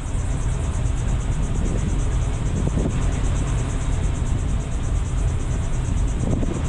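Steady low rumble of car engines and street traffic, with a high, evenly pulsing buzz over it.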